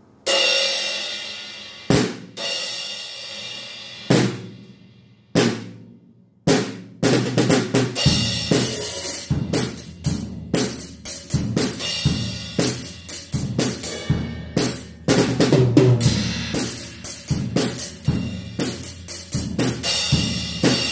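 Acoustic drum kit: a cymbal struck alone five times, each hit left to ring out, then from about seven seconds in a full groove of bass drum, snare and cymbals.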